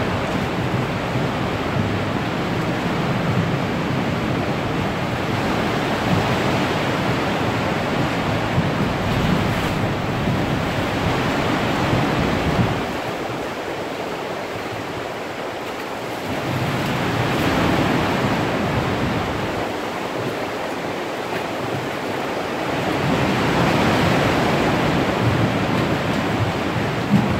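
Sea water surging and splashing against the rock walls of a sea cave, swelling and easing every several seconds with the swell.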